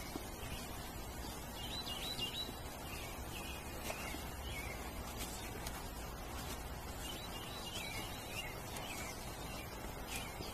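A songbird singing two short twittering phrases, about two seconds in and again near eight seconds, over steady low background noise.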